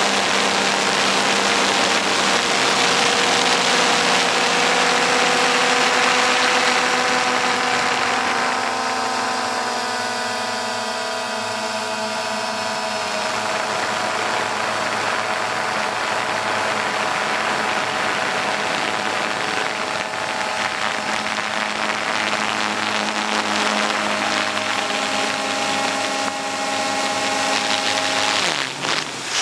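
XK X380 quadcopter's motors and propellers whining steadily under a rush of wind, heard up close from the camera on board. About a third of the way in, the motor pitch wavers and shifts for several seconds. The drone is flying out of control, climbing on its own, which the owner puts down to the ESCs needing calibration.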